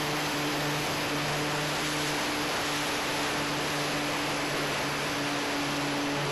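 Steady hiss of wind over the onboard camera microphone of a Durafly Tundra RC plane in flight, with the steady hum of its electric motor and propeller underneath.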